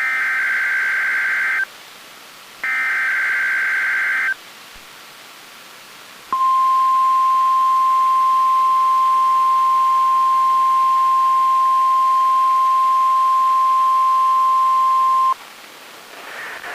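Emergency Alert System SAME header data bursts, two buzzy digital bursts of about a second and a half each, a second apart. After a short pause comes the NOAA Weather Radio 1050 Hz warning alarm tone, one steady high tone held about nine seconds that cuts off suddenly. Together they are the alert signal of a required weekly test.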